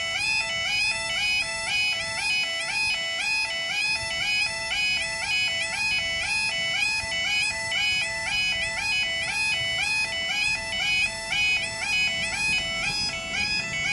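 Railway level crossing audible warning alarm sounding continuously: a loud, high two-tone warble that steps up and down in pitch about twice a second. A low rumble comes in near the end.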